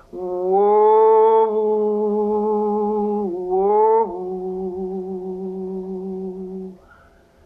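A solo voice singing slow, wordless music in long held notes: one long note, a dip and slide upward a little past three seconds in, then another long note that stops about a second before the end.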